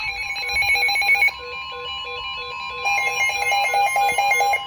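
Electronic alert tones from an emergency-alert receiver: a steady tone near 1 kHz held throughout, with quick electronic beeps repeating over it at about four a second. The beep pattern changes about a second in and again near three seconds in.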